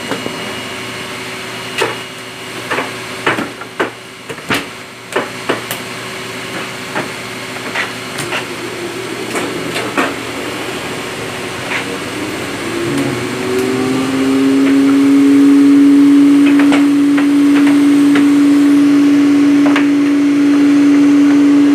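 Stacks of paper tapped and knocked on the steel table of a Wohlenberg guillotine paper cutter, a string of sharp knocks. About 13 seconds in, the cutter's electric motor starts: a brief rising pitch, then a loud, steady hum.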